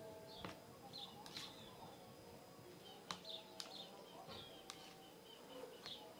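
Faint short bird chirps, repeated every half second or so, with a few light clicks from food being mixed in a bowl.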